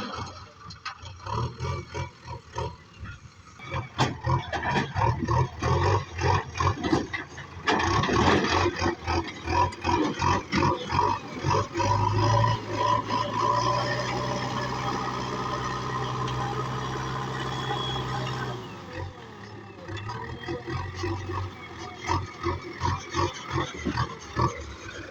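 Heavy diesel engine working under load, chugging in rapid uneven pulses. About halfway through it settles into a steady, hard-working note for several seconds, then drops back to the pulsing.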